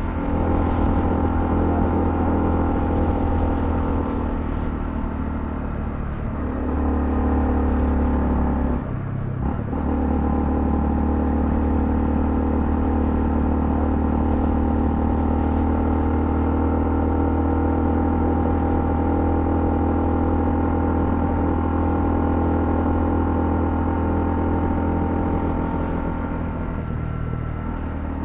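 Honda CL250 motorcycle engine running steadily while riding. The engine note changes about six seconds in, breaks off briefly about nine seconds in, and drops lower near the end.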